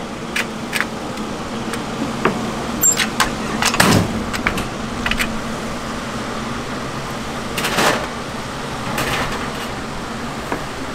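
Steady hum of an electric fan with scattered clicks and rattles from a candy cutting machine's ridged rollers as a hard candy rope is worked through it. The loudest clatters come about 4 seconds and 8 seconds in.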